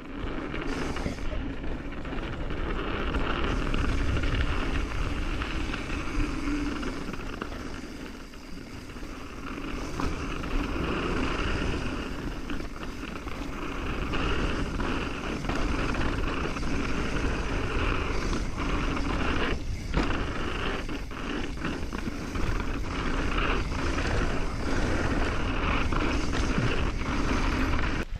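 Mountain bike descending a dirt trail, recorded on a GoPro: a steady rush of wind on the microphone over tyre noise on dirt, with short clatters of the bike over bumps in the second half.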